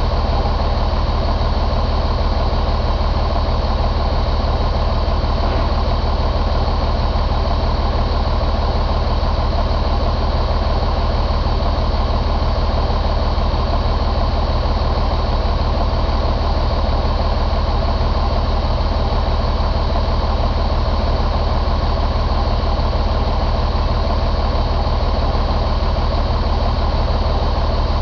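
A 2006 Mercedes MBE906 inline-six diesel engine idling steadily in its truck.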